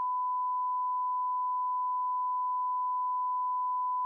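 Bars-and-tone test signal: a single steady pure beep at one unchanging pitch and level.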